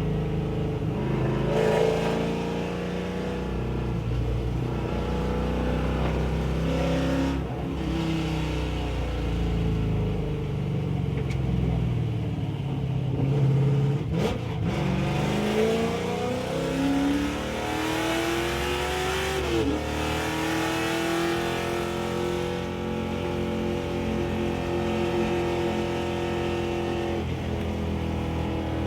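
Race car engine heard from the passenger seat on track, its pitch climbing under acceleration and dropping again several times as the driver shifts and brakes through the corners.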